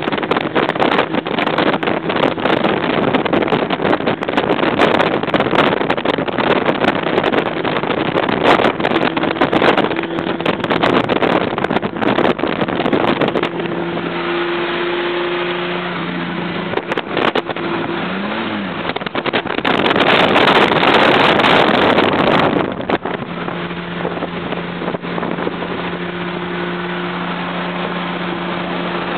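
1963 Chevrolet Impala driving at highway speed, heard from inside the cabin: a steady mix of engine, wind and road noise. A loud surge of noise comes about two-thirds of the way through, after which the engine note settles into a steady hum.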